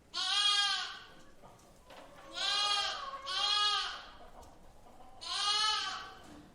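A lamb bleating four times, each bleat under a second long, the second and third coming back to back.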